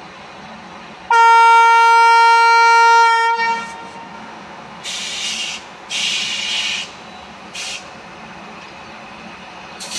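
Indian Railways electric locomotive's air horn sounding one long blast of about two seconds, the usual signal before the train pulls out. It is followed by short hisses of air, two longer ones and then a brief one.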